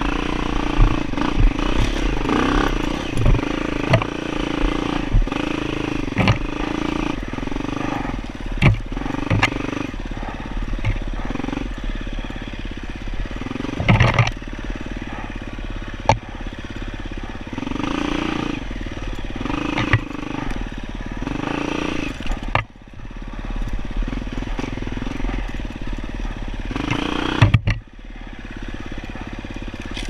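Dirt bike engine revving up and down in repeated surges as the rider works the throttle on a rough trail, with sharp knocks and clatter from the bike over the ground. The throttle is briefly shut twice, a few seconds from the end.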